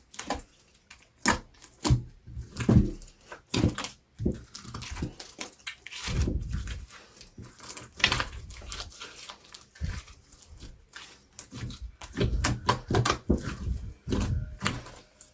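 Slime being squeezed and kneaded by hand: irregular wet squelches and sticky popping clicks, coming in clusters.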